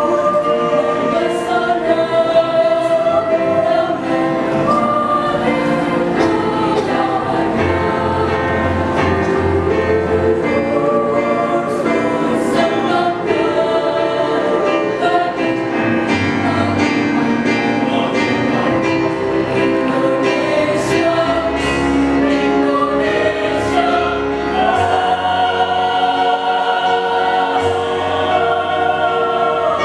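School choir singing in several voice parts, holding long chords that move together.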